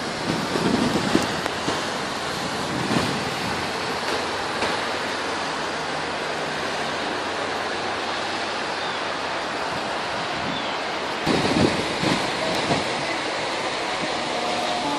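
Steady rushing noise of a rainstorm and floodwater, with wind gusts buffeting the phone's microphone about a second in and again around eleven seconds.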